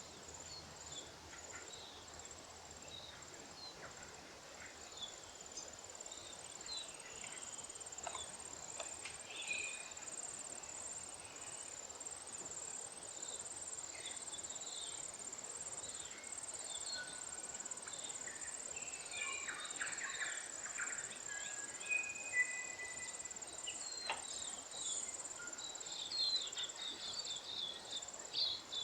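Short scattered chirps and twitters of lesser redpolls, busiest in the second half, over a steady, very high, rapidly pulsing buzz.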